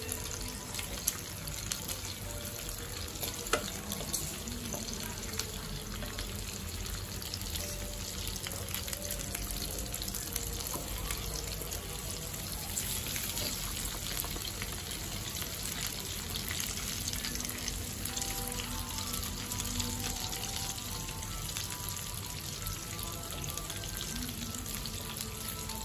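Marinated meat sizzling steadily on an electric grill pan, with a few sharp clicks of metal tongs against the pan in the first few seconds. Faint background music.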